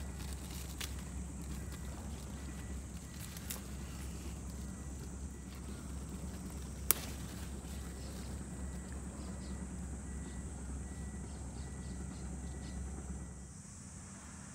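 A bitter melon's stem snapping once as the fruit is picked off the vine: a single sharp crack about seven seconds in, with a few fainter clicks of hands among the leaves. Under it runs a steady low rumble and a thin high hiss, and the rumble drops away near the end.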